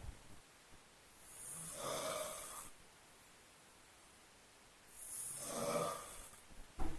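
A person snoring in sleep: two long, rasping snores about three and a half seconds apart. A brief low thump comes just before the end.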